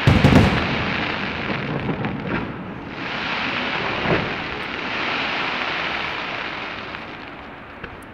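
Fireworks going off: a loud bang at the start, then a dense, steady crackle from sparkling shells. Another bang comes about four seconds in, and the crackle fades near the end.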